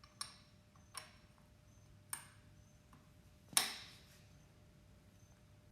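Faint clicks of metal parts being handled on a Cowboy CB4500 heavy-duty sewing machine as its cap is put back on: three small ticks, then a louder knock that rings briefly.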